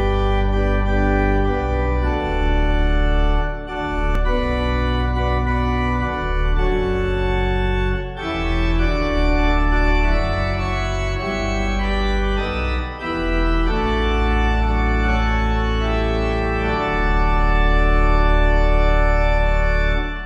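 Organ playing sustained chords over a deep bass, the chords changing every second or two, fading out at the very end.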